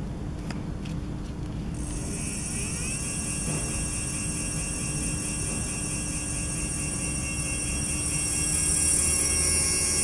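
A 12-inch 24V 250W brushless direct-drive hub motor spun up on the throttle. After a few faint ticks, a high electronic whine rises about two seconds in and then holds steady as the motor runs at its top speed of about 15.5 km/h (9.6 mph).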